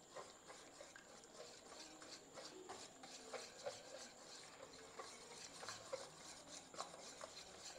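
Egg-and-flour batter being beaten by hand in a bowl: faint, irregular clicks and scrapes of the utensil against the bowl.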